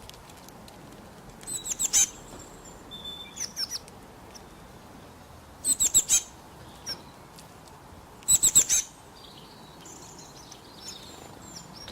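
A bird calling: three loud bursts of four or five quick, high, falling notes about three seconds apart, with a softer burst between the first two and faint chirps near the end.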